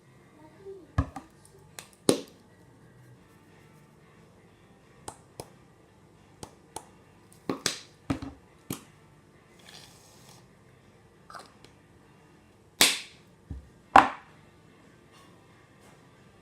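Homemade slime being mixed and handled by hand: scattered sharp clicks and slaps at irregular intervals, the two loudest near the end.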